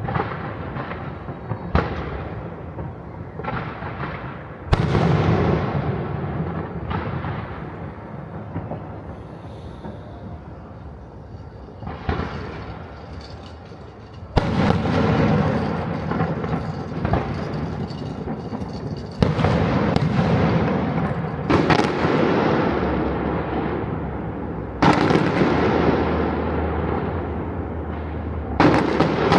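Fireworks going off over a city: a string of sharp bangs from bursting shells, several seconds apart, each trailing off into crackle and rumble, with more distant bursts in between. It is quieter for a few seconds in the middle, then the bangs come thick again.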